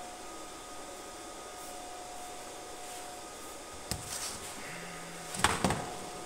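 Handling noises from a MIG welding torch and its cable being pulled out and laid on a workbench: a sharp click about four seconds in, then a couple of loud knocks near the end, over a faint steady hum.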